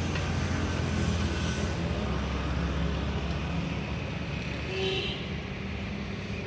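An engine running steadily with a low hum, its pitch settling slightly lower about two seconds in. A brief, higher-pitched sound comes near the end.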